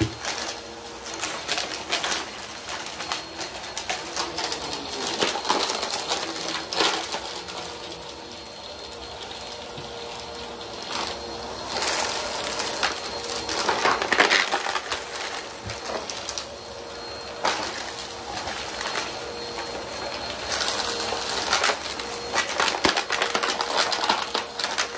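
Bissell bagless upright vacuum cleaner running over rug and carpet, with a steady motor whine under dense crackling and rattling as grit and debris are sucked up into its clear canister.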